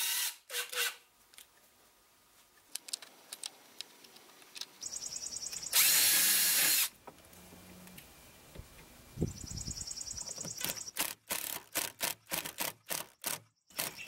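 A cordless drill runs briefly, driving a screw through a drilled golf ball, and stops about half a second in. After that come scattered clicks, a loud burst of noise about a second long near the middle, an insect's faint pulsed trilling, and a quick run of sharp clicks and knocks near the end.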